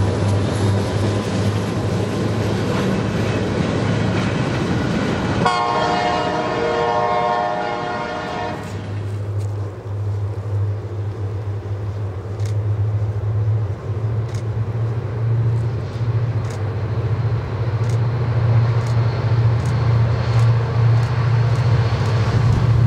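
Freight train rolling by, the noise of its cars and wheels filling the air. About five seconds in, a multi-note diesel locomotive air horn sounds for about three seconds. After that comes a steady low hum with occasional faint clicks.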